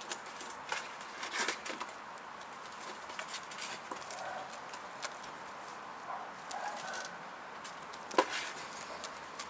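Kittens playing: light pattering and scratching of small paws with scattered soft clicks, and one sharper tap about eight seconds in.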